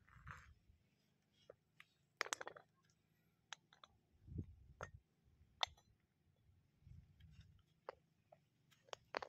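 Scattered light clicks and knocks of hard objects being handled, with a short rattling scrape about two seconds in and a few low dull thuds between them.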